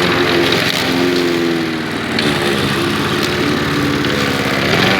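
Lawn mower engine running steadily with its blade down, cutting into a pile of coconut flour, with a couple of brief clicks about two and three seconds in.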